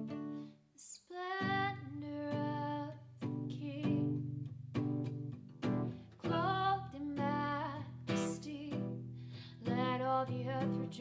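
Worship song sung with strummed acoustic guitar accompaniment, after a brief pause about a second in.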